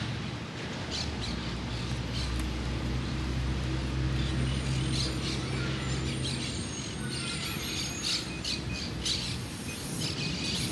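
Birds chirping and squawking, with many short calls from about five seconds in, over a low steady hum that fades out after about six seconds.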